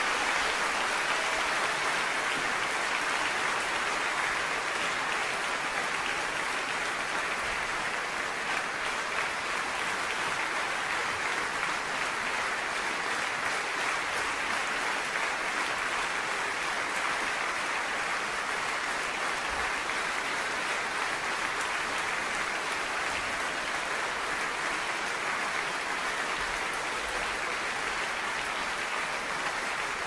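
Audience applause: dense, steady clapping that slowly grows quieter.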